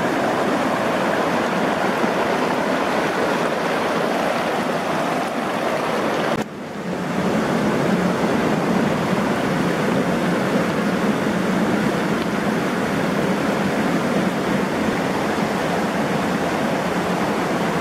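Rushing river water: a steady, loud rush that drops out for a moment about six and a half seconds in, then resumes.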